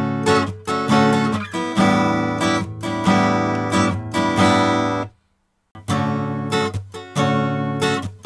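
Acoustic guitar strumming chords, heard through a Dave Hill Designs Europa 1 mic preamp with its even- and odd-harmonics controls turned well up. The playing breaks off about five seconds in and resumes half a second later.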